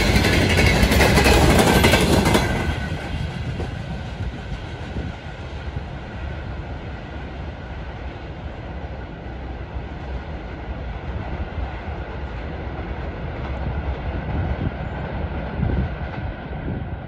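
Wagons of a fast freight train rolling past, wheels clattering over the rail joints; about two seconds in the loudest part cuts off sharply, leaving a quieter rolling rumble.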